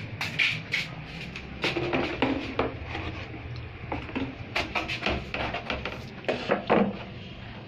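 Irregular clicks, clatter and knocks, some close together, over a low steady hum.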